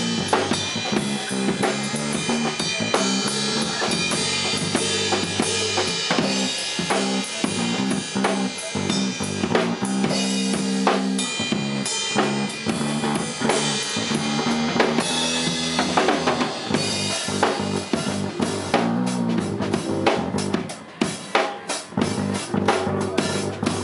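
Live instrumental jam of electric bass guitar and drum kit: the bass holds low notes under a busy beat of kick, snare and cymbals. Near the end the bass thins out and the drum hits stand apart on their own.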